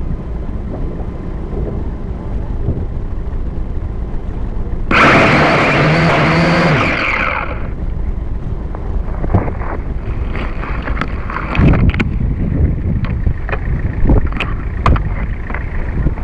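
Small camera quadcopter down in long grass: a steady low rumble, then about five seconds in a loud buzz of its motors for about two and a half seconds. After that come rustling and scattered knocks as it is handled in the grass.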